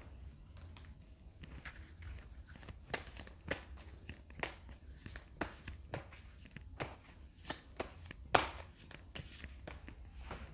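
Tarot cards being handled and laid down on a table: a string of irregular light taps and clicks, the loudest about eight seconds in.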